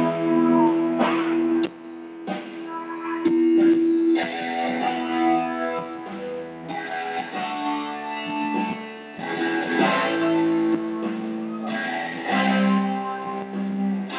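Live band music at a soundcheck, with a guitar prominent, playing held chords and notes that change every second or so.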